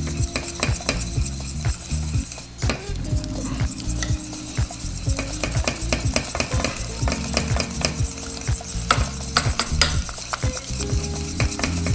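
Wire whisk stirring a thick white cheese sauce in a metal saucepan, with many quick clicks and scrapes as it hits the pan.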